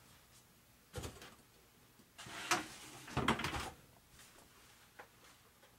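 A few brief knocks and scrapes of parts being handled and set down, about four separate bumps.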